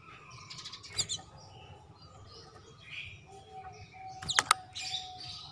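Domestic canary giving brief chirps, with a few sharp clicks. One short chirp comes about a second in, and a louder cluster of sharp chirps and clicks comes around four seconds in.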